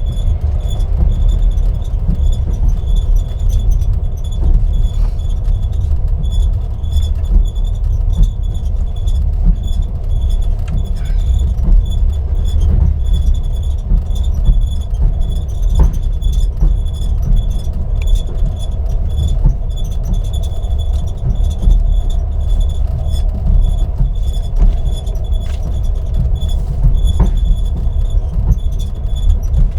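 Russian Railways passenger carriage in motion: a steady low rumble from the wheels and running gear, with a thin steady high whine. The ceiling panels creak and tick at irregular moments over it.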